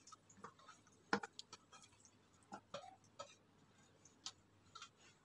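Faint, scattered taps and clicks as raw boneless chicken pieces are dropped into the plastic bowl of a food chopper, with the sharpest tap about a second in.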